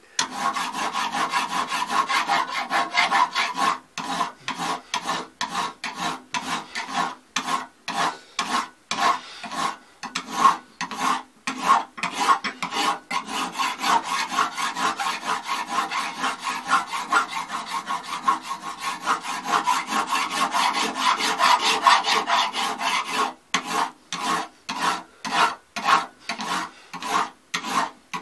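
Flat hand file rasping back and forth across a cast brass rifle butt plate clamped in a vise, in rapid, even strokes with a few short pauses: the rough casting is being filed down to remove pits.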